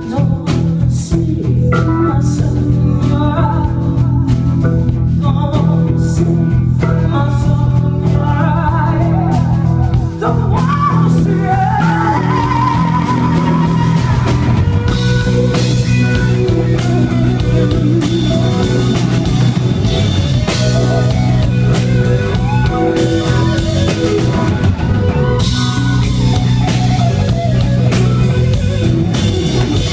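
Live blues-rock band: a woman singing lead over electric guitar, bass and drums. The accompaniment is sparser at first, then the full band with drums and cymbals plays from about halfway.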